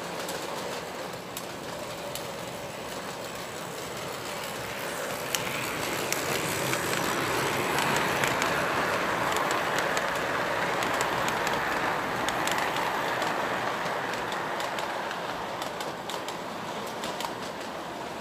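Lionel Santa Fe model freight train running on its track, its wheels rumbling and clicking over the rail joints. The sound grows louder as the train passes close by around the middle, then fades as it moves away.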